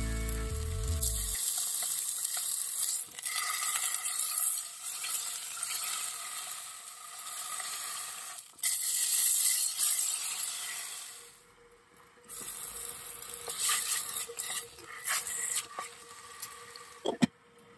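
A block of beef sizzling as it is seared in a frying pan and turned with tongs. The sizzle dies down briefly about twelve seconds in, and there is a sharp knock near the end.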